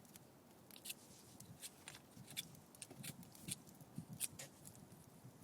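Faint, irregular crackles and clicks from a wood campfire, a few snaps a second.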